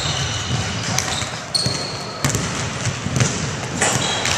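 Indoor basketball play on a sports-hall court: sneakers squeaking, with a few thuds of the ball and feet on the floor, and faint voices.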